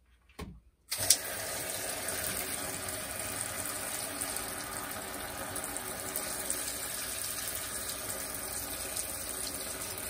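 Water spraying from a handheld shower head into a small plastic portable washing machine tub packed with clothes. It starts abruptly about a second in and then runs steadily.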